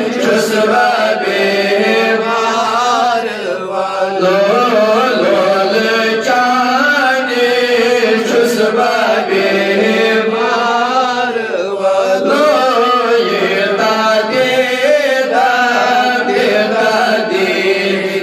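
A man's solo voice chanting a Kashmiri naat, a devotional poem in praise of the Prophet Muhammad, into a microphone. He sings in long melodic lines that bend and glide, pausing only briefly for breath.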